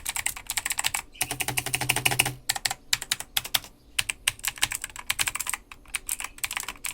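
Mechanical keyboard with clicky blue switches being typed on fast, in quick runs of keystrokes with short pauses between them.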